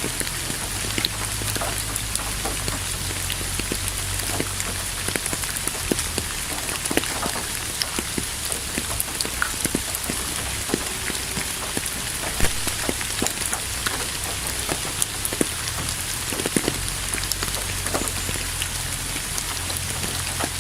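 Steady rain falling, an even hiss scattered with many individual drops ticking on a surface.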